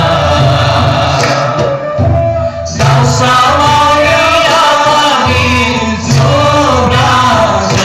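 Mixed choir of women and men singing a gospel hymn through microphones and a PA system over a steady low accompaniment. The singing breaks off briefly about two seconds in, then resumes.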